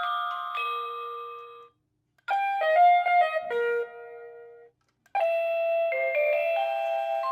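Wireless doorbell receiver playing its preset chime tunes one after another, each a short run of bell-like electronic notes. One tune ends early in the stretch, a second plays from about two seconds in, and a third starts about five seconds in, with brief silences between them.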